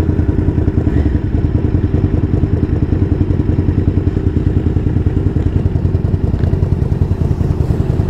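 Sport motorcycle engine idling at a standstill, with a steady, fast exhaust beat.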